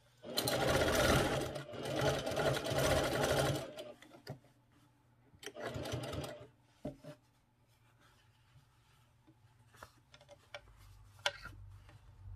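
A Juki semi-industrial sewing machine stitches cloth in a long run of about three seconds, then in a shorter run about five seconds in and a brief burst just after. Small scattered clicks follow as the fabric is handled between seams.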